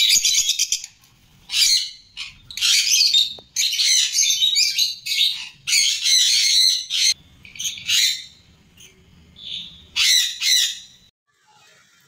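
Several peach-faced lovebirds calling in rapid, high-pitched squawking and chattering bursts that overlap and repeat. The calls stop about a second before the end.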